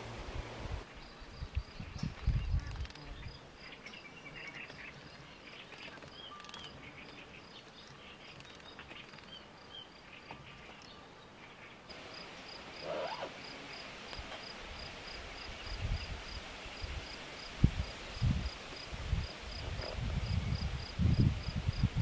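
Outdoor field ambience: an insect chirping in a steady pulse, about three chirps a second, with a few brief bird chirps in the first half. Low rumbling bumps come near the start and grow toward the end.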